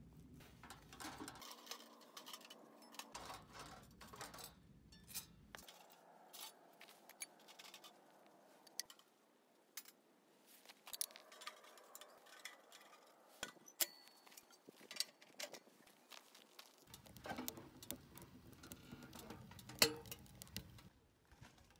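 Metal parts of a sheet-steel camp stove and its stainless chimney pipe sections clinking and knocking as they are handled: scattered light metallic clinks and taps, faint overall.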